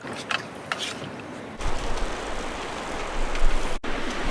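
A few sharp clicks, then from about a second and a half in a steady rushing noise with a low rumble: strong wind buffeting the microphone.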